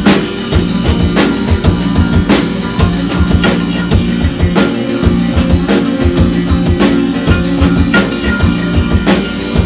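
Live band playing: a drum kit keeping a steady beat with kick drum, under electric bass and electric guitar.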